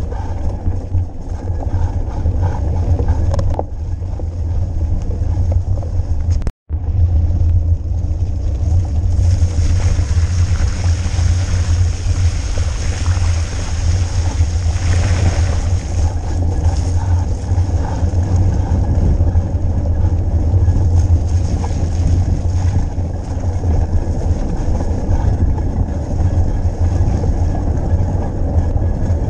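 Ride noise from a mountain bike on the move: wind buffeting the camera's microphone with a heavy low rumble, and tyre and ground noise that grows into a louder hiss for several seconds around the middle. The sound cuts out completely for an instant about six and a half seconds in.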